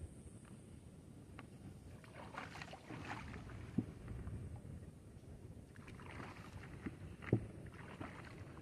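Water splashing and sloshing as a person wades in shallow water and handles a plastic bucket, with a few sharp knocks, the loudest about seven seconds in, over a low wind rumble on the microphone.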